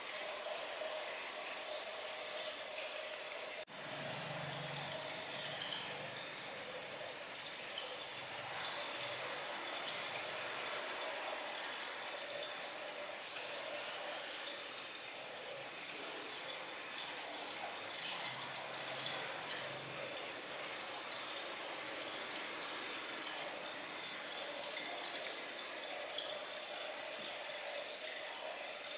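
A steady hiss, with a brief dip in level about four seconds in.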